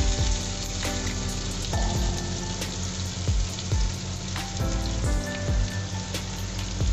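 Chopped onions and green chillies sizzling as they are tipped into hot mustard oil with cumin seeds and garlic in a frying pan, with a few light knocks.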